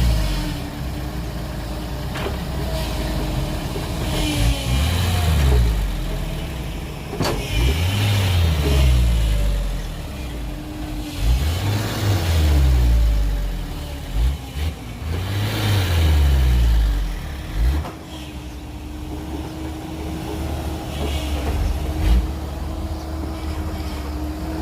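Heavy diesel engine of earth-moving equipment revving up and down in repeated surges, about every three to four seconds, with a few sharp knocks. Near the end it settles to a steadier run.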